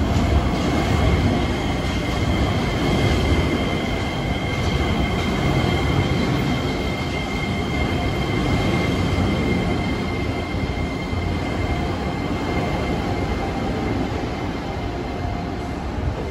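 Tokyo Monorail train running into a station along the platform: a steady rumble with a high whine over it that fades near the end.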